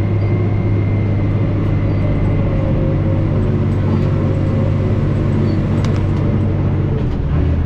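Komatsu D65 bulldozer's diesel engine running steadily under load while pushing dirt, its note dropping slightly near the end.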